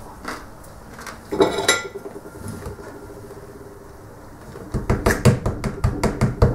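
A single clatter with a brief ring a little over a second in, then, near the end, a fast even run of knocks about three a second: a bottle of barbecue sauce being shaken.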